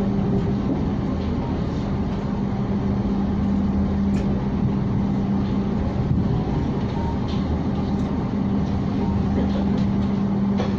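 Passenger train running at speed, heard from inside an executive-class coach: a steady rumble of wheels on track with a constant hum that fades out for a few seconds mid-way and then returns, and a few faint ticks.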